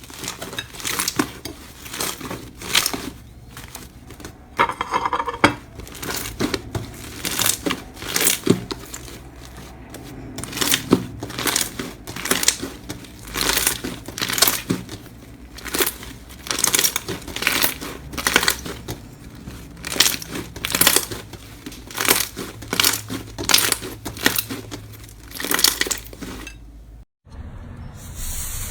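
Slime being squeezed and pressed by hand, giving crackling, popping bursts about once a second. Near the end it cuts off abruptly and a steady hiss follows.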